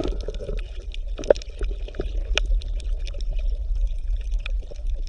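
Underwater bubbling and gurgling: irregular small pops and clicks over a steady low rumble.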